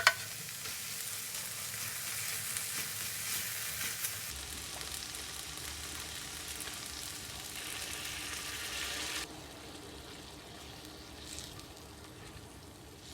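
Food sizzling on a hot teppanyaki griddle, with a sharp click right at the start; the sizzle drops quieter about nine seconds in.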